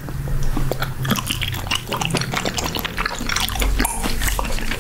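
Two people chewing gooseneck barnacle meat close to the microphone, a dense run of short mouth clicks.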